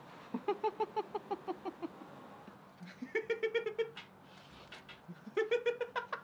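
A man laughing in three rapid, high-pitched fits, each a quick run of ha-ha-ha lasting about a second.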